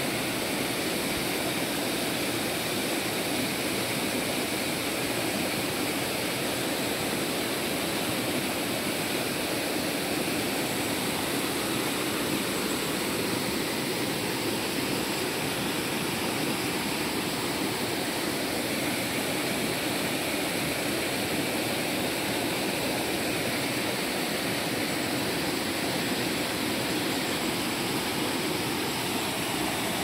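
Rushing water of a rocky stream, a steady, unbroken noise.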